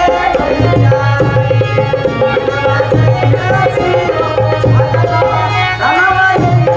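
Instrumental passage of Indian folk devotional music: held melody notes over a steady hand-drum rhythm.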